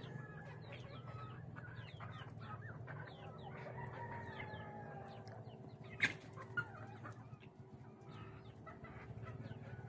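Native chickens clucking, with a rooster crowing and many short, high chirps repeating throughout over a steady low hum. A sharp click about six seconds in is the loudest moment.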